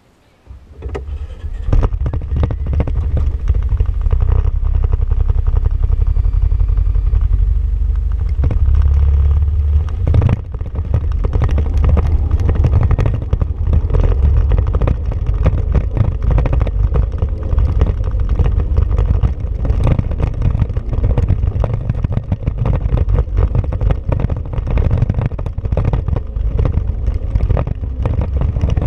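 Honda Pioneer 500 side-by-side UTV running as it drives along a dirt trail, with frequent rattles and knocks from the rough ground. The sound rises from near quiet about a second in as it pulls away.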